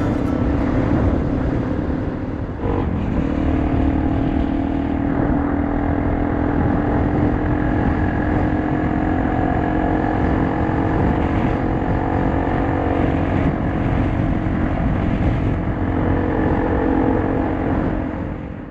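Honda XR 250 single-cylinder motorcycle engine running at a steady, fairly constant pitch over a dense low rumble. It fades out at the very end.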